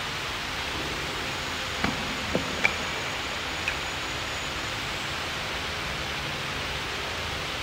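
Weight plates being handled on the sleeve of a barbell: four short clinks close together, over a steady hiss.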